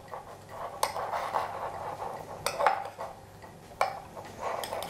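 A metal spoon stirring raisins and flour in a small ceramic bowl: soft scraping with about four sharp clinks of spoon on bowl.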